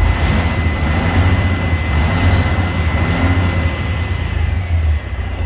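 Caterpillar C12 diesel engine of a Kenworth T2000, heard from inside the cab, revved up from idle with its turbocharger audibly spooling, then easing off near the end.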